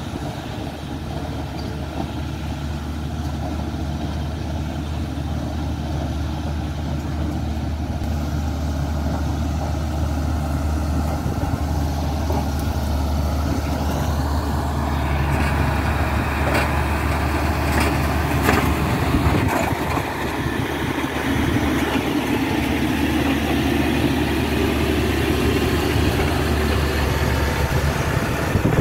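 Caterpillar 120K motor grader's six-cylinder diesel engine running steadily under load, slowly growing louder as it comes closer. From about halfway the blade scraping and pushing gravel adds a rough hiss, with a few sharp clicks of stones.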